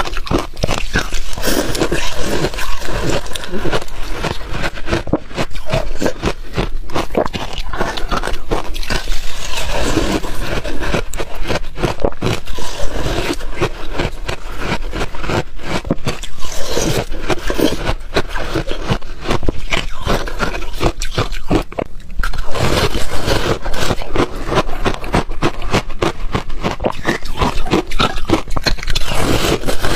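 Ice being bitten and chewed: a dense, continuous run of crisp crunches and cracks.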